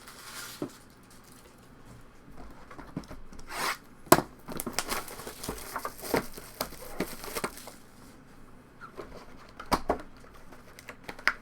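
Foil trading-card pack wrappers being torn open and crinkled, with cards handled in between: scattered rustles and clicks, the sharpest snap about four seconds in.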